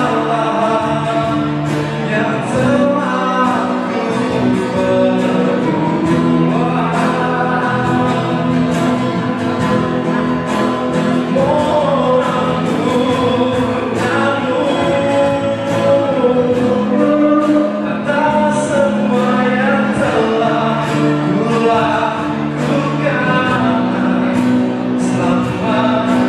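Live acoustic band playing a religious pop song: a male singer over strummed acoustic guitars, with a cajón keeping a steady beat.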